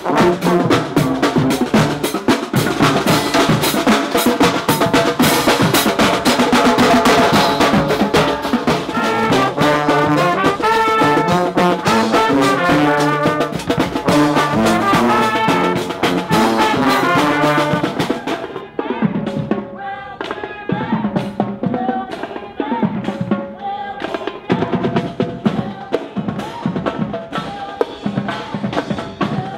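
Marching band playing, with snare and bass drums hitting under melodic horn lines. About two-thirds of the way through, the music turns quieter and duller.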